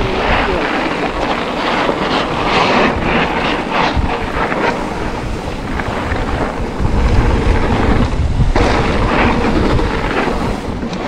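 Trek Rail 7 electric mountain bike riding down a trail at speed: wind rushing over the action camera's microphone, with tyre noise and the bike rattling and knocking over bumps, a couple of sharper knocks standing out.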